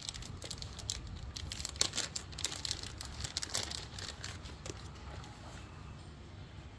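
Irregular crinkling and light clicking of plastic as a car door's wiring harness and plug-in connectors are handled by hand, busiest in the first few seconds and thinning out after.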